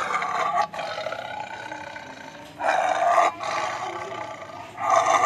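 Lion giving three loud, rough roaring calls, the first right at the start, the second about two and a half seconds in, and the third starting near the end.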